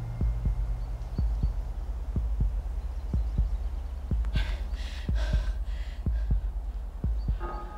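Film score sound design: a low, steady rumbling drone with a fast, even heartbeat-like thud pulsing a few times a second, building suspense. A brief rush of hiss comes in a little past the middle, and a pitched tone enters near the end.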